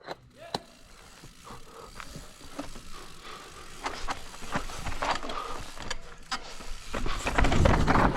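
Mountain bike rolling over rock and dirt: scattered clicks and knocks from the chain and tyres over a low rumble that grows louder over the last second or so.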